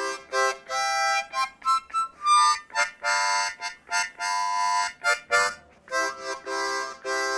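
Harmonica playing a slow tune of held chords and single notes, each lasting about half a second to a second, with short breaks between them.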